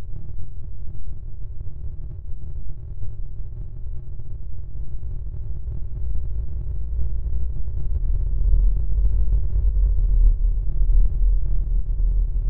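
Ambient synthesizer drone soundtrack: a deep, flickering low rumble with faint steady high tones held above it. The bass deepens and swells from about halfway through.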